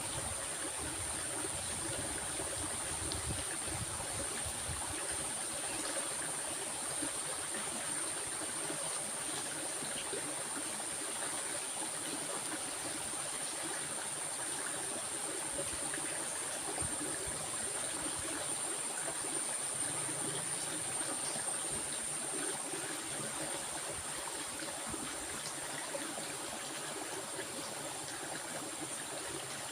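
Steady rushing of a flowing stream, with a thin, constant high-pitched hiss above it.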